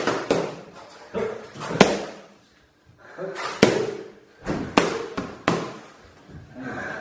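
Boxing gloves striking focus mitts: sharp slapping punches in quick pairs and short combinations, with a brief pause near the middle.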